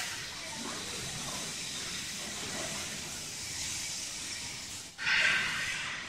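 Steady hiss of background noise, broken about five seconds in by a sudden brief drop and then a short, louder rush of noise.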